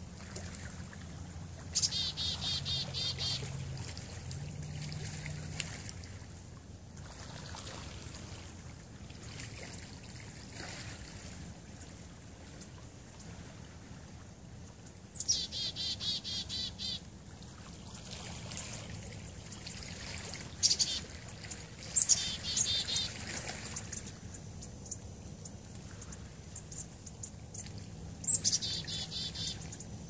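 A small songbird singing a short, fast, high trill, one to two seconds long, four times with pauses between, over a steady faint hiss.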